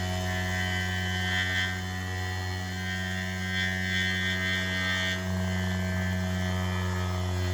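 3D-printed maglev rotor of a pulse motor spinning steadily with a smooth hum rather than a rattle, its drive coil pulled back and the rotor running centred. A higher whine comes and goes over the hum.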